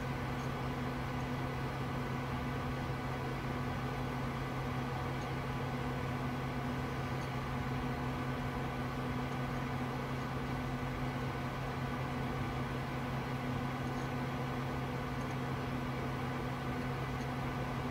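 Steady hum of an old desktop computer running, with its cooling fans and power supply droning at a constant pitch.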